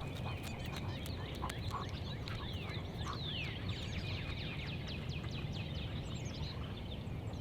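Wild birds calling: many short, high notes, each sweeping down in pitch, over a steady low rumble.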